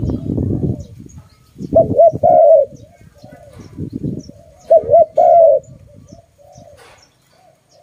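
Spotted dove cooing: two loud phrases, each two short coos followed by a longer drawn coo, with fainter cooing between them. A low rumbling noise sits under the first second and again near the middle.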